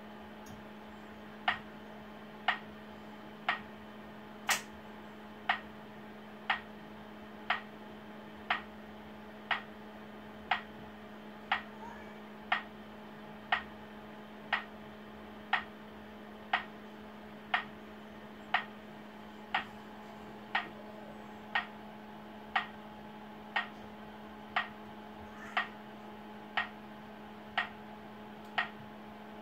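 Accessible pedestrian signal for blind people ticking slowly, about once a second, the wait tick given while the pedestrian light shows red. A steady hum runs underneath.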